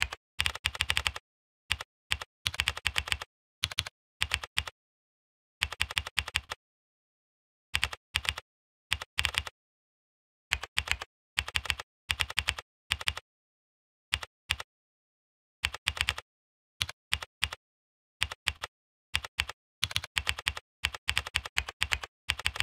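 Computer keyboard typing in quick bursts of keystrokes, with silent pauses between the bursts.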